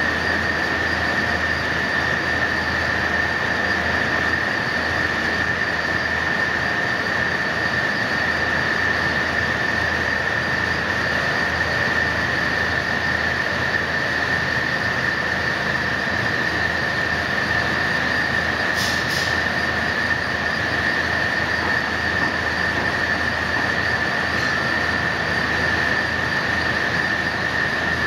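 Extrusion lamination line for woven fabric running: steady industrial machine noise of rollers and drives with a continuous high whine.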